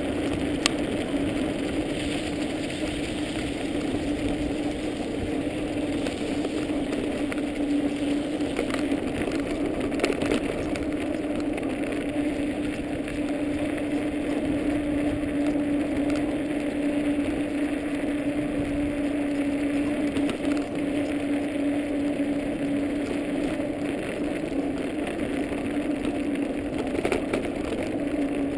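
Dog scooter rolling at a steady pace over snow-covered pavement: a constant rolling noise from its tyres with a steady low hum.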